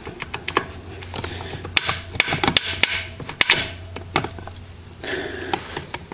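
Irregular metallic clicks and knocks of a 12mm wrench working a rear sprocket bolt and nut on a dirt bike as it is tightened, over a steady low hum.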